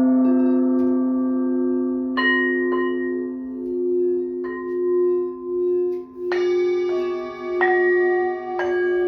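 Singing bowls struck about six times, each strike adding a new set of ringing overtones over a sustained low hum that wavers as the tones beat against each other.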